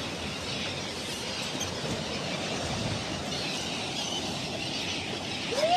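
Steady wind and sea noise, even and without any distinct tone or rhythm.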